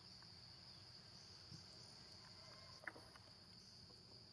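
Faint, steady high-pitched drone of insects, with a couple of small clicks about one and a half and three seconds in.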